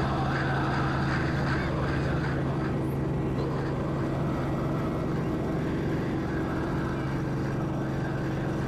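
Steady drone of an aircraft's engines heard inside the cabin: a constant low hum over even rushing noise.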